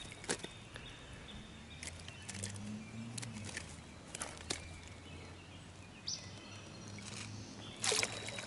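Small splashes, drips and handling noises of a rainbow trout being lifted out of a landing net over creek water, with a louder splash near the end.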